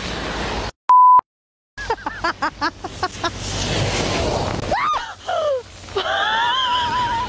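Rain falling, cut by a short high beep and a second of silence; then a woman laughing in short bursts before a vehicle rushes past and sends a loud splash of road water over her, and she screams with long high shrieks.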